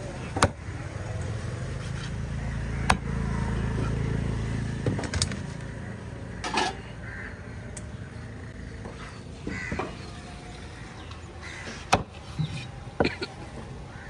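Scattered sharp knocks of a machete chopping tuna on a wooden chopping block, about six of them spread unevenly. A low rumble swells and fades during the first half.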